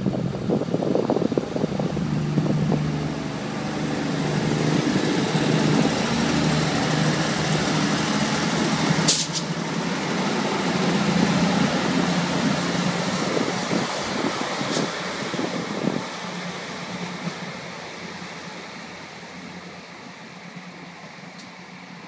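Irish Rail 2600 class diesel multiple unit (two coupled sets) pulling away, its diesel engines running under power as it passes close by. There is a single sharp crack about nine seconds in. The sound fades steadily as the train draws away over the last few seconds.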